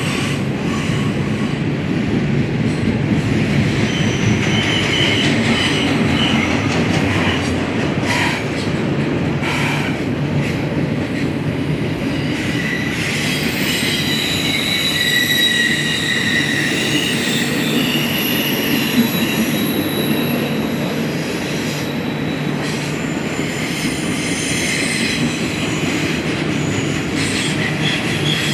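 A BNSF train's cars rolling steadily past on the rails, with a continuous rumble and thin high wheel squeals that come and go.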